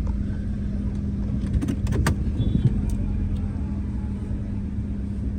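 Car engine running with a steady low hum and rumble, with a few short clicks about two seconds in.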